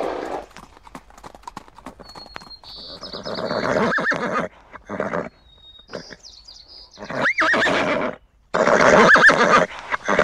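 Horses neighing: three long whinnies, about three, seven and nine seconds in.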